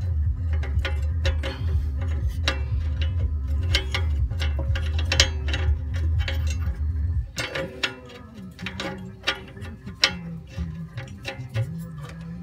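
Rapid, irregular metallic clicking and ticking as a new upstream oxygen sensor is screwed by hand into its threaded bung on the exhaust pipe, over a low steady hum that cuts off about seven seconds in.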